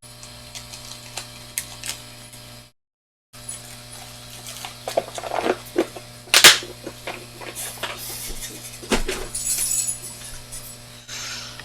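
Small hard objects clicking and clinking as they are picked up and set down on a workbench, with one loud sharp clack about six seconds in, over a steady electrical hum.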